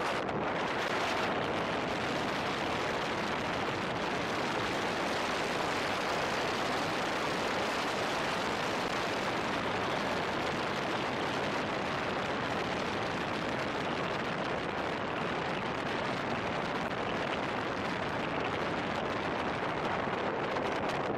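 Steady rush of wind and tyre noise from a car driving at speed, picked up by a camera mounted outside on the car's roof.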